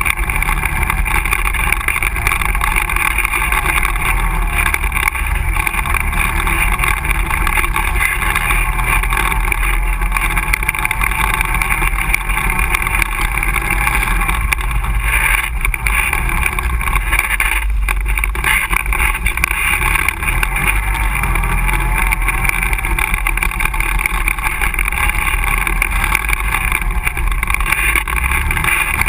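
ATV engine running steadily while riding a rough dirt trail, heard from on board the machine. There are a couple of brief knocks about halfway through.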